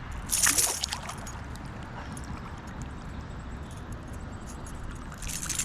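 Water splashing twice, briefly about half a second in and again near the end, over a steady rush of flowing water.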